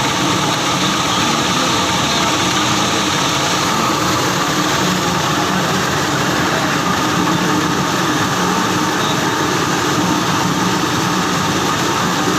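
Plastic scrap washing machine running steadily: an even, unbroken mechanical drone with no pauses or changes.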